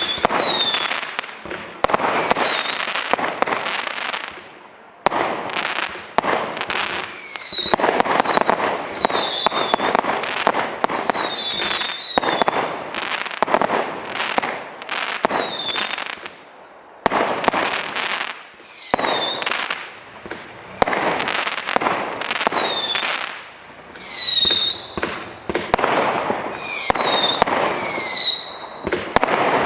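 A 504-shot, 0.6-inch fireworks cake firing: rapid volleys of sharp shots and bursts with crackle, and many short whistles falling in pitch. The shooting pauses briefly about 5 and 17 seconds in.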